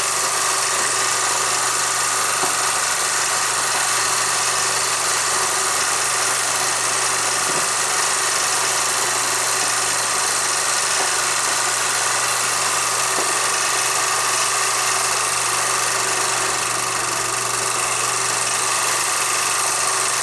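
Film projector running: a steady mechanical whir and hum with hiss, unchanged as the film's picture blurs and the screen goes blank.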